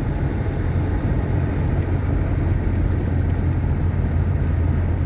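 GAZelle light van driving at steady speed, heard from inside the cab: an even engine and road drone with a strong low hum.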